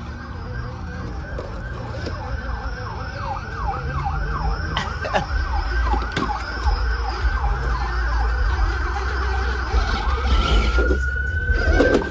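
An emergency vehicle's siren in a fast yelp, sweeping up and down about three times a second, then changing near the end to a single slow wail that rises and starts to fall, over a steady low rumble.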